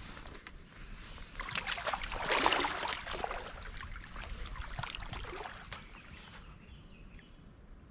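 Water splashing, swelling for a couple of seconds and then fading back to the steady sound of the stream.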